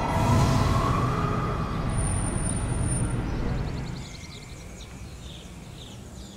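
The theme music ends in a rising whoosh that swells and fades over the next few seconds. About four seconds in it drops away to a quieter background with small birds chirping.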